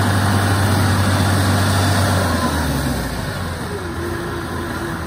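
Engine of a tracked rice-sack carrier working under load as it climbs a muddy bank, a deep steady hum that eases off about three seconds in. A thin steady whine joins it near the end.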